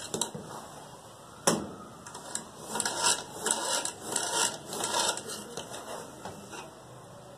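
Metal spoon scraping through cooked biryani rice and knocking against the sides of a large metal pot as it is stirred, in irregular strokes with one sharp knock about a second and a half in.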